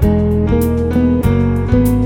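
Instrumental music led by guitar over a bass line, with the notes changing about every half second.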